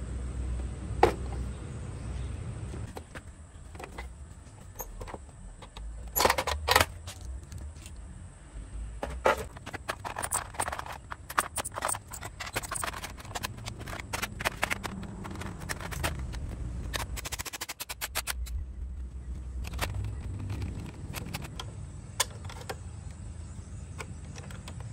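Canon inkjet printer being taken apart by hand: its plastic casing and inner parts click and clatter as they are handled, and a screwdriver works at the screws. There is a louder cluster of knocks about six seconds in and dense runs of quick clicks through the middle.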